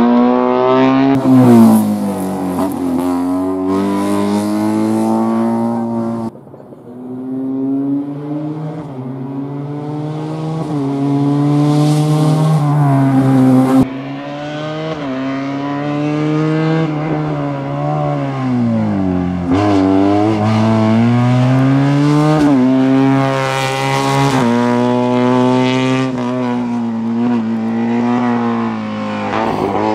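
Race car engine revving hard through an autoslalom course of cones, its pitch repeatedly climbing under acceleration and dropping as it lifts and changes gear. The sound jumps abruptly about six and fourteen seconds in.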